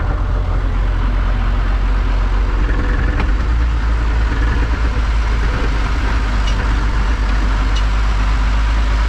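Tractor engine running steadily under way, a deep, even drone.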